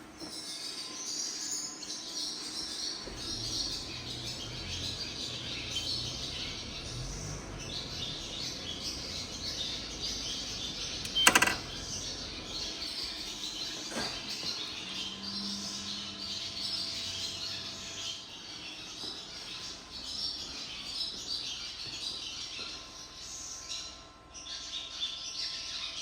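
Many birds chirping steadily. A single sharp click about eleven seconds in, and a weaker one a few seconds later.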